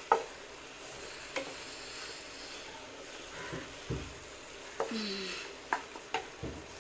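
Wooden spatula stirring sliced okra, tomato and onion with spice powders in a sizzling metal pan, with a few sharp knocks of the spatula against the pan; the loudest knock comes right at the start.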